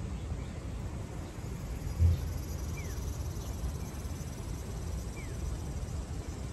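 Outdoor park ambience: a steady low rumble with a single dull thump about two seconds in, faint high insect buzzing, and two short falling bird chirps.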